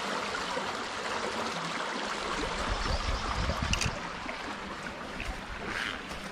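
Small stream's water running over rocks in shallow pocket water, a steady wash, with a little low rumbling in the middle.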